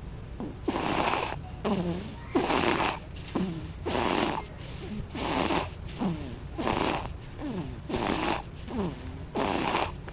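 Fast, rhythmic snoring from a sleeper: a rasping breath a little more than once a second, each with a falling pitch, with short pauses in between.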